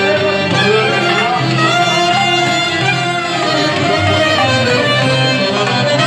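Live Albanian folk music played instrumentally: a violin carrying the melody over accordion chords and sustained bass notes.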